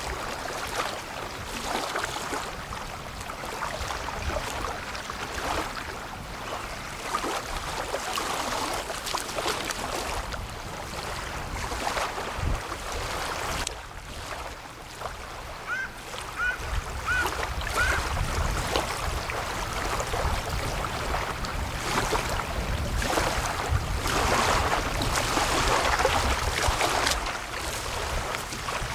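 Water and wind noise on the lake shore, a steady rushing haze with low rumble throughout. About halfway through, four short rising calls sound in quick succession.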